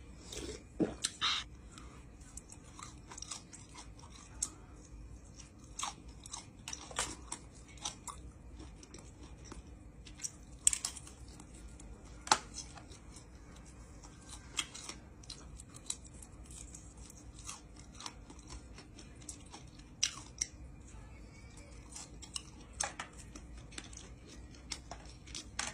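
A person chewing and biting grilled skewered meat, with short wet mouth clicks and crunches at irregular intervals.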